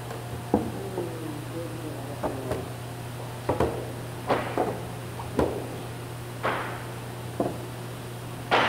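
Heavy wooden stair boards knocking and bumping against one another as they are shifted by hand, about a dozen irregular wooden knocks, with a steady low hum underneath.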